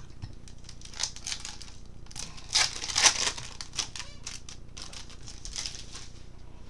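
Plastic baseball card pack wrapper crinkling as it is torn open and handled, with the loudest run of crackles about two and a half to three seconds in.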